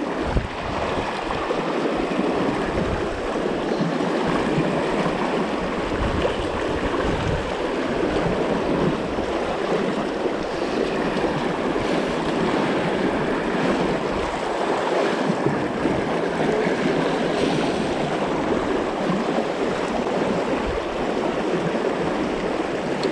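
Fast, shallow river water rushing over rocks close by, a steady rush with no breaks.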